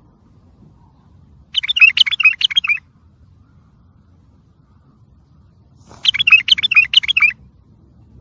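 Wild white-eared bulbul singing: two short phrases of rapid warbled notes, each just over a second long, about four seconds apart.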